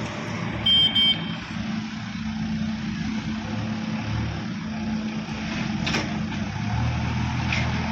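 Diesel engine of a JCB backhoe loader running steadily, its note shifting a few times. Two short beeps sound about a second in.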